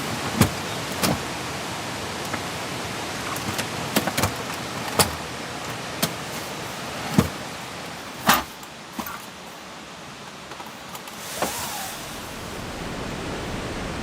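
Steady rain hiss with about a dozen sharp, irregular taps and knocks over it. The rain eases for a few seconds past the middle.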